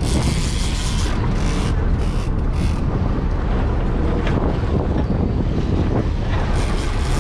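Wind buffeting the microphone over the steady low wash of the sea against the boat, with short gusts of hiss in the first few seconds and again near the end.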